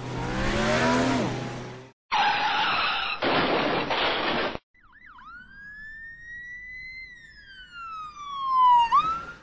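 Logo-intro sound effects. First a noisy sweep with falling tones, then about two seconds in a loud crash-like noise burst lasting a couple of seconds. Then a single siren wail rises and slowly falls, turning sharply up again near the end.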